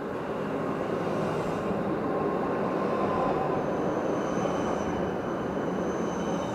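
A tram passing close by: the rumble of steel wheels on rails swells to its loudest about three seconds in, then eases off. From about halfway on, a thin high-pitched whine sounds over the rumble.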